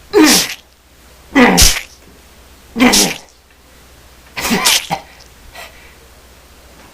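Four short, loud cries with falling pitch, about one and a half seconds apart, in mock pain as if being stabbed.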